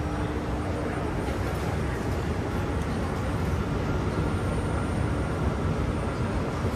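Singapore MRT train running, a steady even noise of the moving train with a faint high tone coming in partway through.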